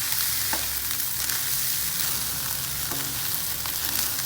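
Fried rice sizzling in a hot pan as it is stir-fried, a steady hiss with scattered short scrapes and taps of the spatula stirring it.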